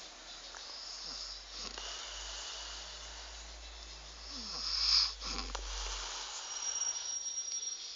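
A man snoring low in his sleep, with breaths puffed out through the lips between snores. One breath builds to the loudest point about five seconds in, then falls away.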